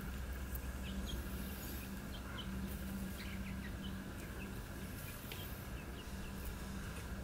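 Outdoor ambience: small birds chirping here and there over a steady low hum.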